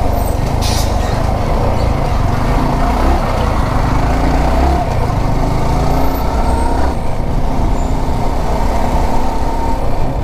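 Yamaha R15 V4's single-cylinder engine running under way, heard through the rider's action-camera mic with heavy wind rumble, and one sharp click about half a second in.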